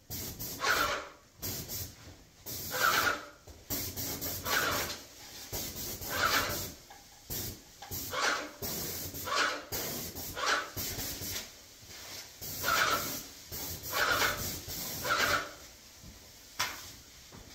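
Airless paint sprayer making a string of short, noisy pumping and hissing bursts, roughly one every second or two at uneven spacing, as it is primed and readied to spray.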